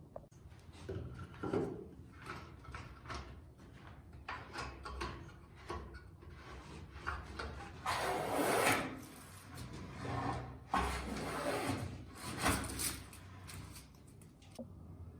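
Wooden parts handled at a workbench: irregular knocks and several drawn-out scraping, sliding strokes of wood on wood, the loudest about eight seconds in.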